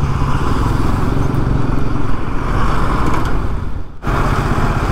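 Bajaj Pulsar NS200 single-cylinder engine running steadily under way, with wind and road noise from riding a rough, dusty road. The sound drops out briefly about four seconds in and picks up again.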